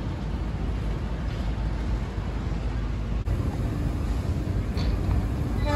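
Wind buffeting the microphone, a steady low rumble with no clear tones, broken by a cut about three seconds in. Right at the end, a train horn begins to sound.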